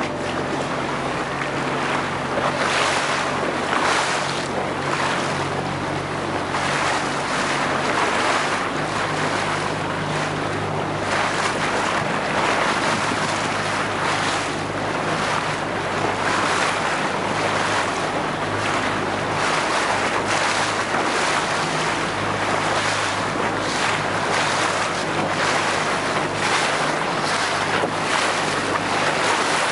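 A small inflatable boat's motor running at a steady low hum that steps in pitch a couple of times, under the rush and slap of water along the hull. Wind buffets the microphone.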